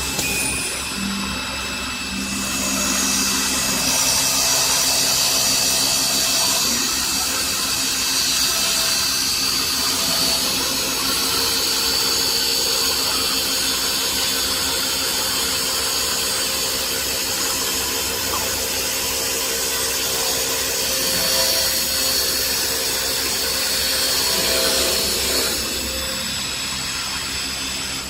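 CNC wood lathe running and cutting a wooden workpiece: a steady machining noise with a high whine over it, easing slightly near the end.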